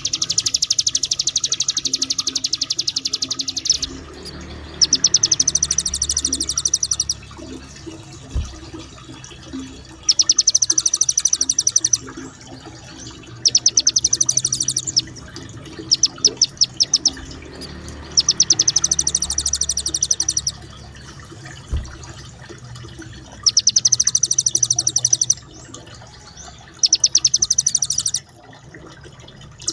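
A small songbird's rapid, high-pitched rolling trill, a 'roll tembak', repeated in about eight bursts of one to four seconds with short pauses between them. A faint low rumble runs underneath, with two soft thumps.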